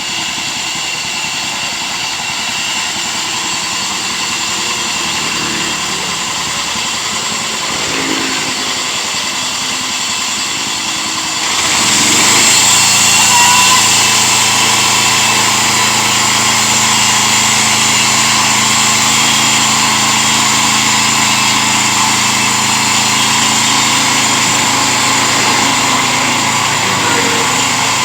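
Engine of a homemade mobile sawmill running steadily. About twelve seconds in it gets louder and settles into a steady higher-powered hum.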